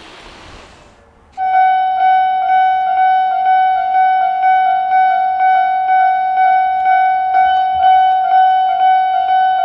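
Electronic railway level-crossing warning bell on a Japanese crossing, starting suddenly about a second and a half in after a rushing noise dies away. It sounds a shrill, loud, repeating tone, about two strokes a second.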